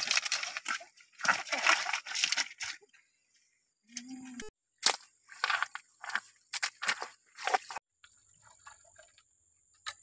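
Crunching, rattling bursts of handling: creek-bed stones shifted by hand, and crabs and snail shells knocking together in a wicker basket. A louder run of bursts comes in the first three seconds and a second, choppier run comes a little after the middle.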